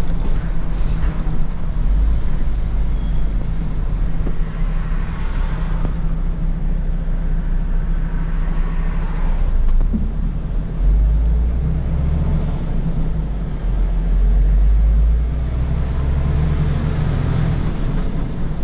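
Inside the cab of a MAN TGX truck driving slowly along a narrow road: the diesel engine runs with a steady low hum under road and tyre noise, growing stronger about eleven seconds in.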